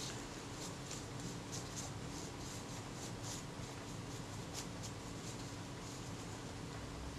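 Faint, irregular scratching as a thin wooden stick is scraped over the back of a camera leatherette covering, working off old adhesive, over a steady low hum.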